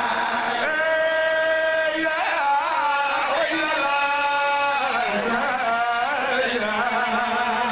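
A man chanting solo into a microphone, holding long sustained notes with wavering ornamental turns between them. About five seconds in, his pitch slides down before he settles on another held note.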